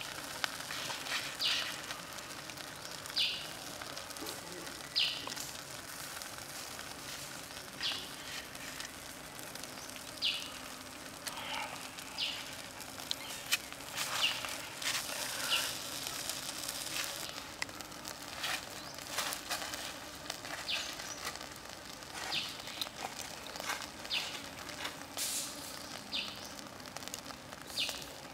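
Squid grilling on a skewer over charcoal, with scattered short crackles and pops over a low steady hiss, and faint bird chirps among them.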